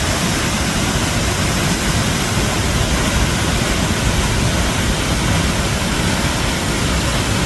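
Waterfall plunging with a steady, loud rushing roar of falling water.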